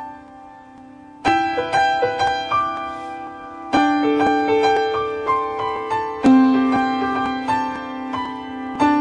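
Piano playing the instrumental introduction of a song: a louder chord struck about every two and a half seconds, with single melody notes in between, each note ringing and fading.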